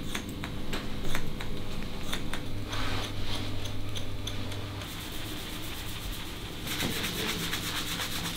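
Barber's scissors snipping through hair: a run of separate snips that quicken toward the middle. In the last couple of seconds, fingers scrub a shampoo-lathered scalp with a steady rubbing.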